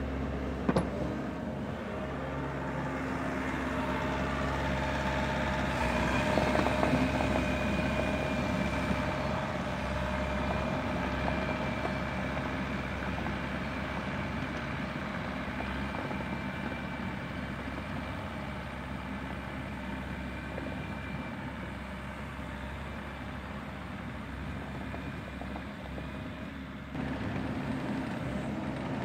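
Bobcat E42 compact excavator running steadily as it tracks over and spreads fresh dirt with its blade, a steady whine sitting over the engine note.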